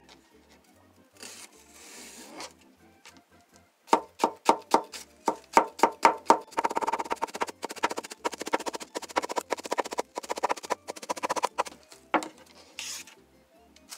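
A kitchen knife chops a Japanese long onion (naga negi) on a plastic cutting board. It starts with a few spaced strokes about four seconds in, then goes into a fast, even run of chopping that stops shortly before the end.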